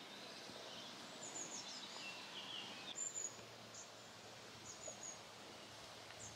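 Faint outdoor ambience: scattered short bird chirps and whistles over a steady hiss.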